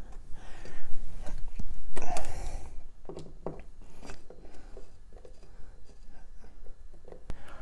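Hand screwdriver driving a screw through a plastic thermostat backing plate into a drywall anchor: irregular scraping, creaking turns and small clicks, louder in the first three seconds and fainter after.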